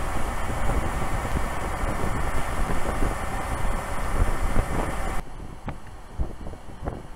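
Vehicles driving at speed on a highway: steady tyre and road noise with low engine rumble. About five seconds in it drops suddenly to a quieter rumble with a few faint thumps.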